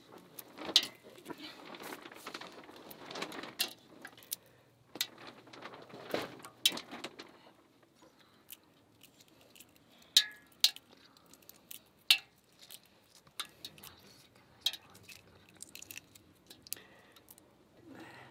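Dishes and cooking utensils being handled: irregular sharp clinks and knocks, with a soft rustling in the first few seconds.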